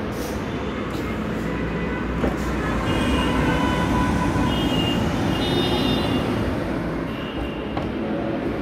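Steady road traffic noise, swelling for a few seconds in the middle, with a few thin high tones mixed in.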